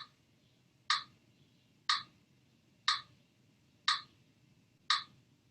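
Metronome ticking steadily, about one short, sharp tick a second, pacing the breathing practice.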